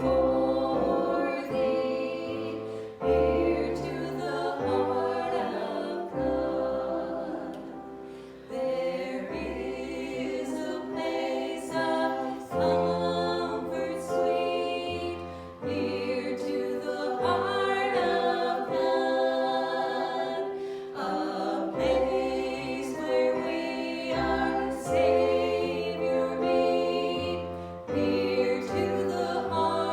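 Worship song in a church service: voices singing together over instrumental accompaniment, with sustained chords and bass notes changing every second or two.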